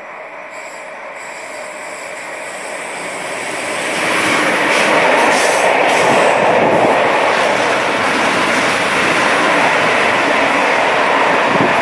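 A freight train of container and tank wagons running through close by on the rails. The rumble and clatter of the wheels build up over the first few seconds, then hold loud and steady as the wagons go past.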